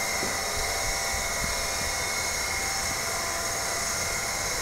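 Steady whirring noise with a faint high whine, even and unbroken.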